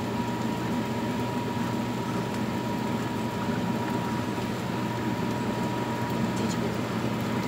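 Food frying in oil in two frying pans, a steady sizzle over a low steady hum.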